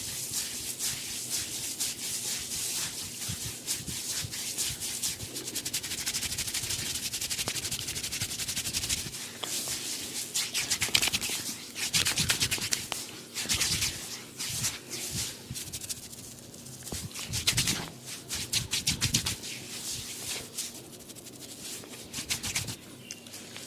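Hair and scalp being scratched and rubbed in a barber's head massage: a dense crackle of fine, rapid ticks. It is steady at first, then comes in uneven strokes that swell and fade from about a third of the way in.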